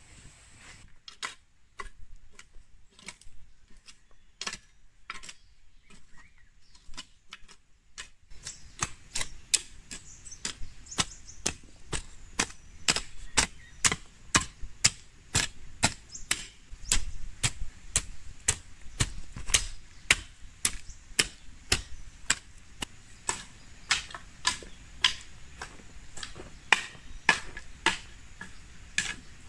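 A hand tool chopping repeatedly with sharp strikes, about two a second. They are sparse and faint at first, then steady and louder from about eight seconds in.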